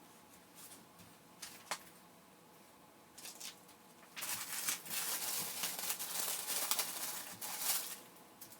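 Packaging being handled: a few sharp clicks, then about four seconds of loud crinkling and rustling, like plastic wrap or bags being pulled off.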